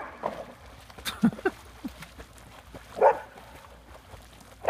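A dog giving short single barks a couple of seconds apart, with faint whines between them.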